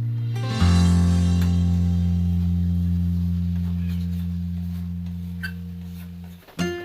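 Background music: a deep plucked string note struck about half a second in and left to ring and slowly fade, followed near the end by a run of quick plucked notes.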